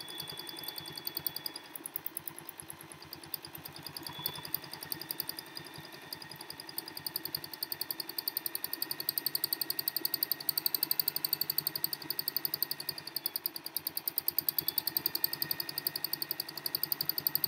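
Domestic sewing machine stitching in free-motion quilting: a rapid, even needle chatter that runs slower and quieter at first, then speeds up and gets louder about halfway through.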